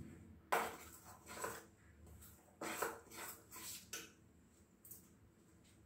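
A metal spoon stirring a thick flour-and-banana batter in a steel bowl, scraping and knocking against the bowl in about half a dozen short strokes over the first four seconds, then fading.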